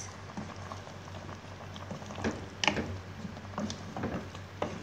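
Chicken curry with potatoes and carrots bubbling in an aluminium saucepan while a wooden spatula stirs it, with a handful of short knocks and scrapes of the spatula against the pot.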